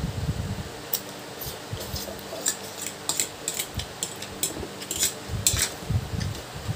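A metal fork scraping and clicking against a plastic plate while a man eats noodles, a run of sharp clicks from about a second in until near the end. Slurping and chewing of noodles are heard at the start and again near the end.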